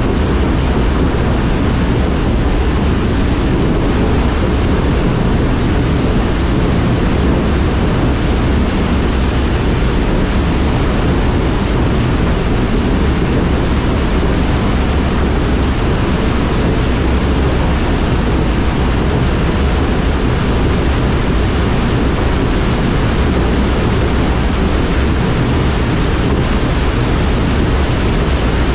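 60-inch Orbinox fixed cone valve discharging at full flow, its cone of spray rushing out into the concrete chamber: a loud, steady rush of water, heaviest in the low end.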